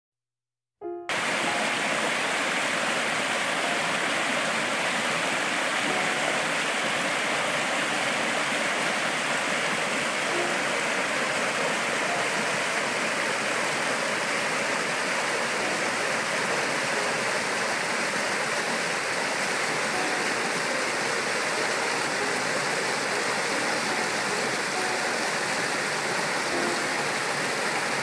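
Shallow stream rushing and splashing over rocks in small cascades, a steady rush that starts about a second in.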